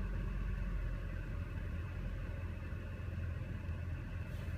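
BMW engine idling steadily with the air conditioning just switched off. The car has a rough-idle problem that the owner's scan put down to misfires on cylinder four and carbon buildup on the throttle body.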